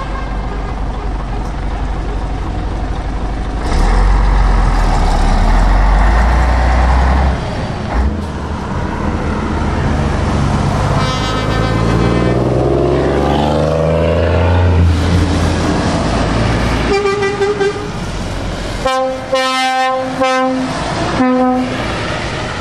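Heavy trucks driving past on a wet road, with a diesel engine rising steadily in pitch as it accelerates midway through. In the last few seconds a truck's air horn sounds in several loud blasts.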